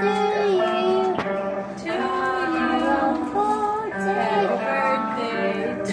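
Singing: a slow melody of long, held notes that change about once a second.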